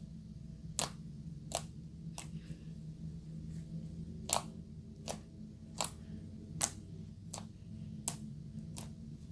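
Homemade strawberry confetti slime being played with for ASMR, making sharp popping clicks at a fairly even pace of about one every three quarters of a second, over a steady low hum.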